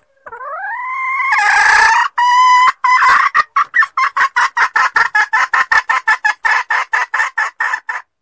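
Junglefowl hen calling: a drawn-out note rising in pitch for about two seconds, then a fast run of clucks, about six a second, that stops abruptly near the end. A recorded hen call of the kind played as a lure to draw wild junglefowl.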